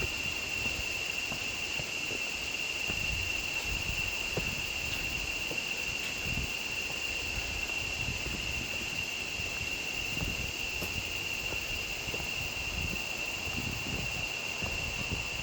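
Steady high-pitched insect drone, with soft, irregular low thumps of footsteps underneath.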